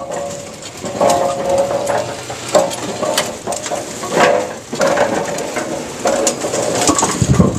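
Brunswick A2 pinsetter cycling, with pins dropping into the pinwheel's pockets in a series of clanks. Several of them set off a ringing metallic gong: the pinwheel's silencer cord is missing, so the wheel vibrates instead of damping the impacts.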